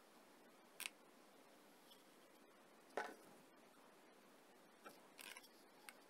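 Near silence broken by a few brief clicks and rustles from gloved hands handling a cordless soldering iron and plastic parts: once about a second in, once about three seconds in, and a short cluster around five seconds in.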